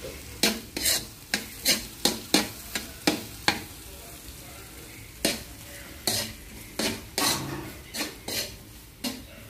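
Metal spoon scraping and knocking against an aluminium wok while a sardine, egg and crushed-chip mixture is stirred over a steady frying sizzle. The strokes come about two or three a second, stop for a moment a little past the middle, then start again.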